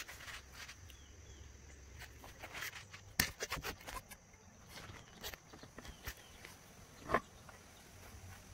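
Phone handling: scattered light knocks, taps and rustles as it is picked up and set down, with the loudest knocks about three seconds in and about seven seconds in. A faint steady high-pitched hum sits underneath.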